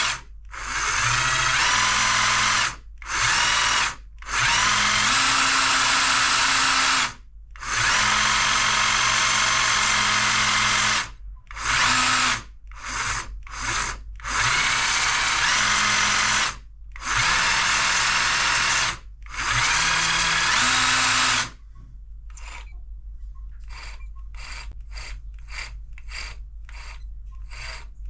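Motor of a Bosch GST 18V-LI cordless jigsaw, its housing opened, run in about ten bursts of up to three seconds, the pitch rising as it spins up at the start of each. Near the end it stops, leaving only faint light clicks.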